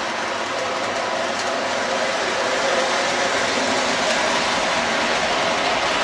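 O-gauge model hopper cars rolling along three-rail track, making a steady noise of wheels running on the rails.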